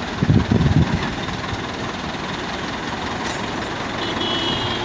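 Diesel engines of a Massey Ferguson 240 tractor and a wheel loader running steadily, with a short burst of loud low rumbling within the first second.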